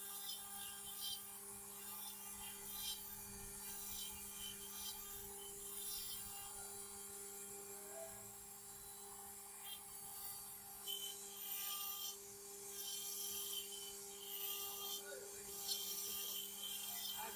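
CNC stone-carving machine running: a steady motor hum under gritty, scraping bursts as the carving bit cuts into stone.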